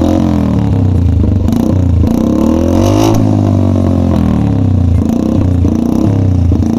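Honda 125 single-cylinder motorcycle engine through an aftermarket SC Project exhaust, revved up and down a few times; the pitch climbs to its highest about three seconds in, then drops back. This is a sound test of the newly fitted exhaust.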